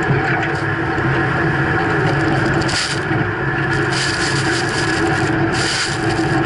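Freightliner snow plow truck pushing through drifts: the engine runs under load with a steady hum while the front plow blade grinds and crunches through packed snow. Thrown snow spray hisses against the cab and the camera, stronger a little before three seconds in and again from about four to six seconds in.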